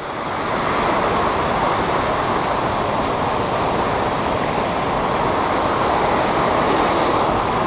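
Creek water rushing steadily over a small cascade, growing louder over the first second and then holding even.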